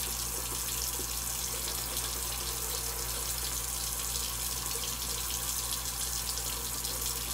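Steady rush of water running from a bathroom tap into the sink.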